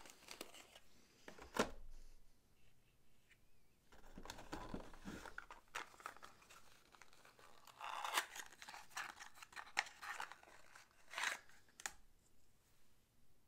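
Board game packaging handled by hand: faint, irregular crinkling and rustling in several short bursts, with a sharp click early on.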